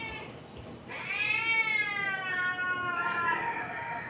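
A cat meowing: one long, drawn-out meow starting about a second in, rising and then slowly falling in pitch, just after the end of a shorter meow.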